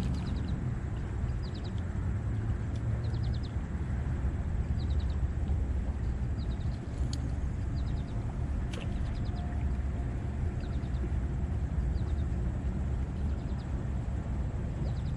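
Outdoor shoreline ambience: a steady low rumble of wind on the microphone, with a faint chirp of four or five quick ticks repeating about every second and a quarter. Two sharp clicks come near the middle.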